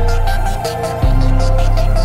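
Background electronic music with a steady beat over a deep bass line; the bass note changes about a second in.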